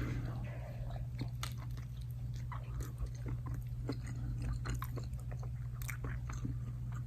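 A man biting into and chewing a toasted steak burrito: irregular small crunches and mouth clicks over a steady low hum.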